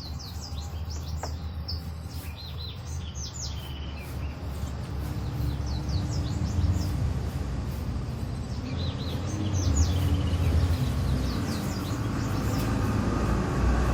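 Birds chirping in quick runs of short, high, downward-sliding notes, in several clusters. Underneath is a steady low rumble that grows louder toward the end.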